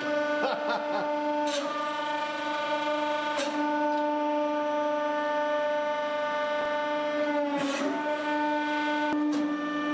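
Hydraulic press's pump motor running with a steady droning hum, broken by three short sharp clicks. Near the end the hum dips briefly in pitch as the ram comes under load squashing the clay figure.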